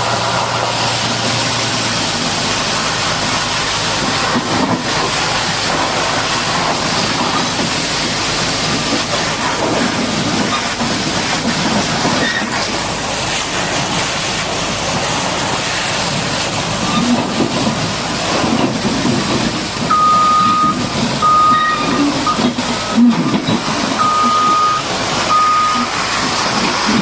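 Steady hiss of a high-pressure water jet washing down a Caterpillar D8R bulldozer, over the rumble of heavy machinery. In the last third, a vehicle's reversing alarm beeps repeatedly.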